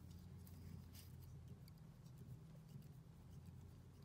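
Near silence: a steady low hum with a few faint light ticks.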